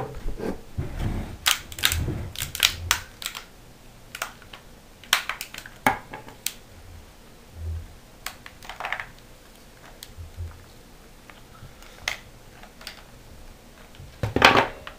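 Plastic ice cube tray being twisted and flexed to pop out set wax-and-cotton-ball tablets: a run of sharp, irregular clicks and cracks, densest in the first few seconds and again in a loud cluster near the end.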